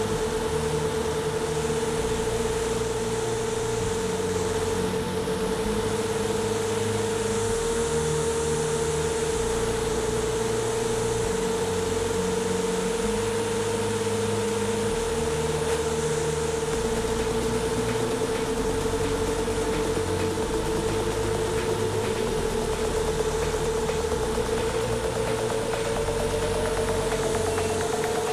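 Motors and propellers of a 7-inch FPV quadcopter (1200kv brushless motors) whining steadily at one pitch in cruising flight. From about two-thirds of the way through, a second tone rises slowly and steadily in pitch.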